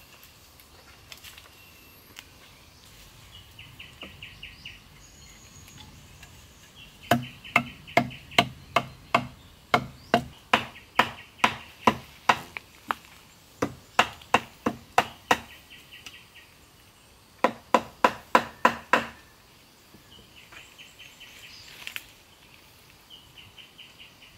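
A blade chopping into a wooden log with steady strokes, about three a second, in a long run and then a short burst of about half a dozen more.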